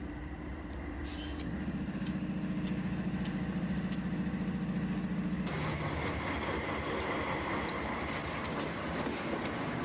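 EMD GP-series two-stroke diesel-electric locomotive running at full throttle, notch 8, under load: a steady low drone. About five and a half seconds in, the drone gives way to a louder, broader rumble and hiss.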